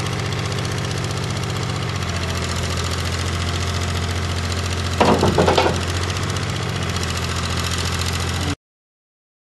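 Heavy engine of the low-loader lorry running steadily, its low note dropping a little about two seconds in. About five seconds in there is a short, loud clatter. The sound cuts off suddenly near the end.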